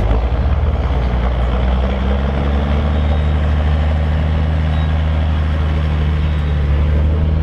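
Large farm tractor's diesel engine running loud and steady, a deep drone that rises slightly in pitch about two seconds in.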